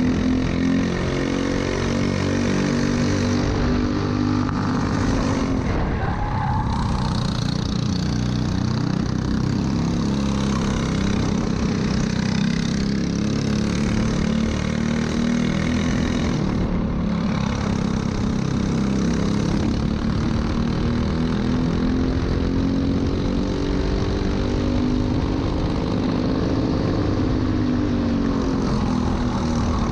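Single-cylinder Briggs & Stratton LO206 four-stroke kart engine running hard at racing speed, its pitch dropping and climbing again several times as the kart slows for corners and accelerates out.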